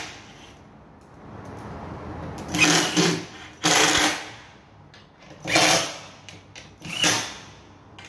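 Cordless drill/driver driving screws in four short bursts of about half a second each, its motor running up and stopping between bursts.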